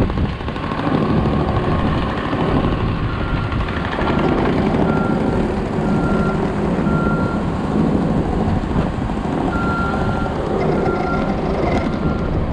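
Diesel work machine running with its backup alarm beeping in a steady repeating rhythm, starting about three seconds in.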